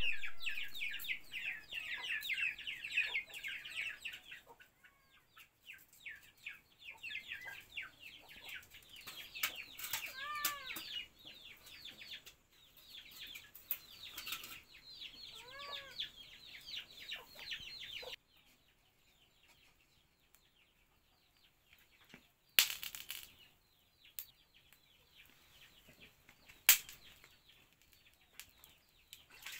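Chickens calling: a dense stream of quick, high chirps, with a few lower clucks in the middle. The calling cuts off about 18 seconds in. After that it is quiet except for two sharp knocks.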